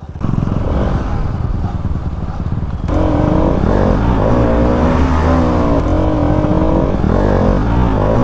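Motorcycle engine running with road and wind noise. About three seconds in, background music with a melody comes in over the engine sound.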